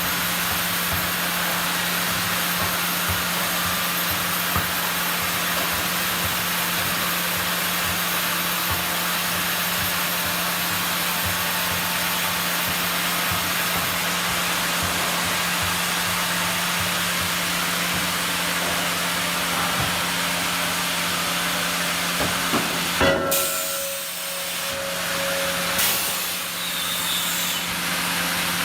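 Sawmill machinery running steadily, a constant hum under a loud rushing noise. About three quarters of the way through it dips with a few knocks and a short higher tone, then runs on as before.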